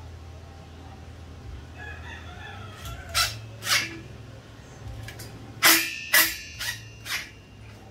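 Cordless drill run in several short bursts into aluminium square tubing, the loudest and closest together in the second half.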